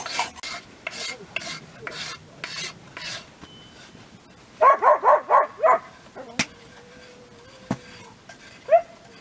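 Carving strokes shaving a wooden axe handle, about two scrapes a second, which stop about three seconds in. Midway comes a quick run of five or six short, high, falling squeaks, then a knock and one more squeak near the end.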